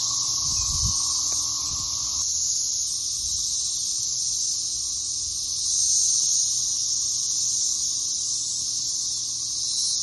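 Chorus of periodical cicadas: many males calling to mate at once, a steady high-pitched drone that swells slightly about six seconds in.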